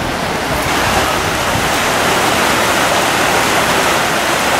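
Fast, shallow stream rushing over rocks past a wooden water wheel: a steady, even rush of water.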